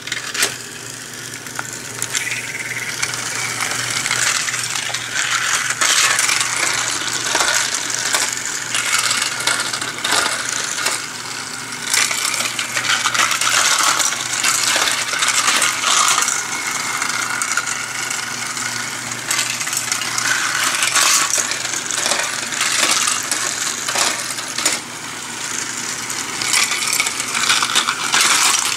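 Small toy car running along snap-together flexible plastic track and over 3D-printed bumpy-road and water-splash ramp pieces: a continuous rattling clatter of dense, irregular clicks, with a faint steady hum underneath.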